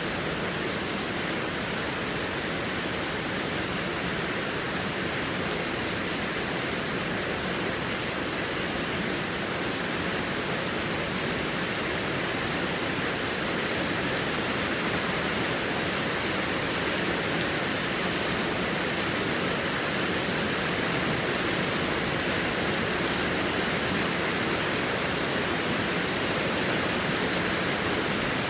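Heavy rain falling steadily as a dense, even hiss, growing slightly louder about halfway through.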